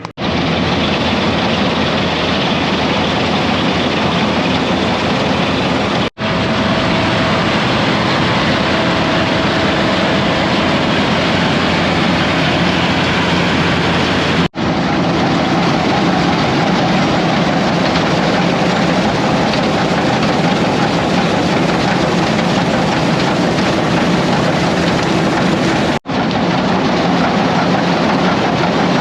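Combine harvester running under load while harvesting wheat: a loud, steady mechanical drone that breaks off for an instant three times.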